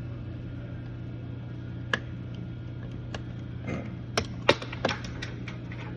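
Sharp clicks and snaps from car door panel plastic trim being worked loose: one about two seconds in, then a quick cluster of them in the second half, over a steady low hum.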